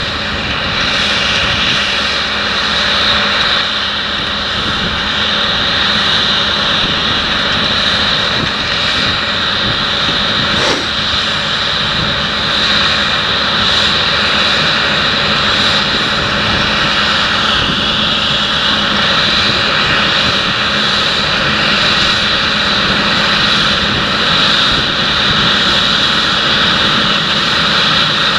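Fendt 930 tractor's six-cylinder diesel engine running steadily under load, pulling a seed drill and press across ploughed ground, with a steady high whine over the engine note.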